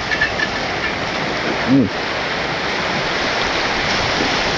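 Surf washing up over wet beach sand: a steady rushing hiss of breaking waves.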